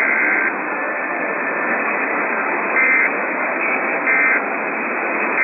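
Emergency Alert System digital data bursts: harsh two-tone buzzing. A long burst stops about half a second in, then short bursts follow roughly every one and a half seconds, under steady radio hiss.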